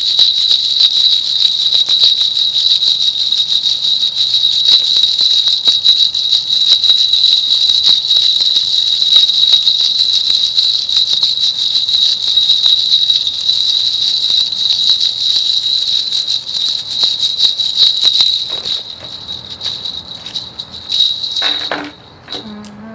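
A Korean shaman's cluster of ritual bells shaken continuously, a dense, steady jingling used in divination. Near the end the shaking breaks up into a few separate shakes and stops.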